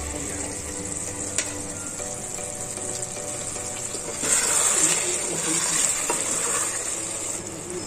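Mushroom masala curry sizzling in an aluminium pot, louder from about four seconds in once the lid is off, with a ladle stirring through it.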